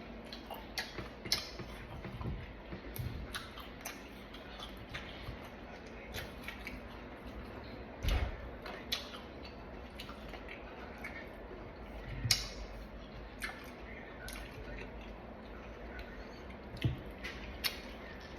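Close-up eating sounds of fruit and yogurt: small, irregular mouth clicks and chewing noises, with three louder knocks spread through, likely a spoon, cup or container being set down.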